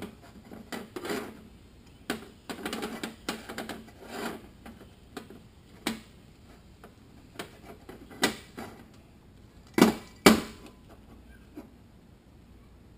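Irregular clicks and taps of metal automatic-transmission parts being handled on a workbench as sealing rings are worked into their grooves, with two louder knocks close together about ten seconds in.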